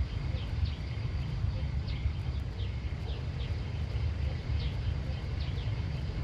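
A rapid series of short, high chirps, each falling in pitch, repeating about twice a second, over a steady low rumble.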